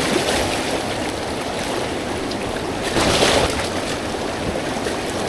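River water rushing steadily, with a brief louder surge about three seconds in.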